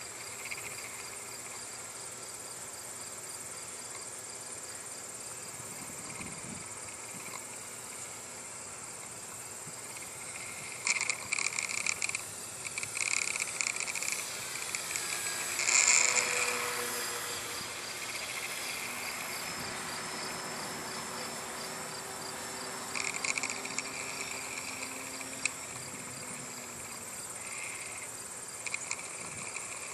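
Steady trilling of insects, with louder bursts of chirring midway and again near the end. Underneath, the faint drone of a small electric RC plane motor passes, falling a little in pitch just after the middle.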